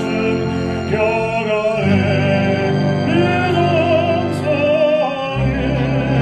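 Baritone singing in a classical, operatic style with vibrato, over instrumental accompaniment whose low notes change about two seconds in and again near the end.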